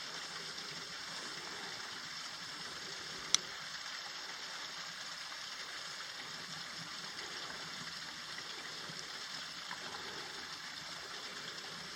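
A small stream running over stones, a steady rush of water. One sharp click about three seconds in.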